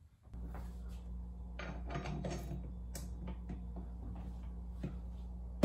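A spatula scraping and clinking against a stand mixer's paddle and steel bowl over a low steady hum, with scattered short clicks, then one sharp clunk near the end.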